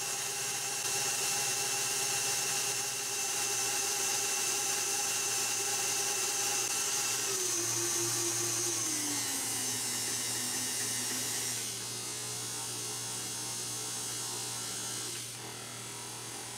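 Electric mixer motor running with a steady whine. Its pitch steps down twice, about seven and nine seconds in, as it slows, and it gets a little quieter near the end.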